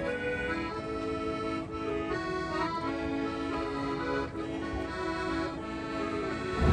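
Background music led by an accordion, playing a melody of held notes over chords at a steady level.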